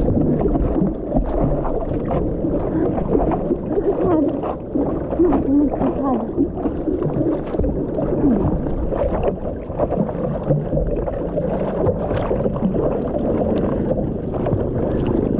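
Water sloshing, splashing and gurgling against a surfboard and its nose-mounted action camera as a surfer paddles prone through the water. Water washes over the lens, and the sound runs on continuously with small splashy clicks.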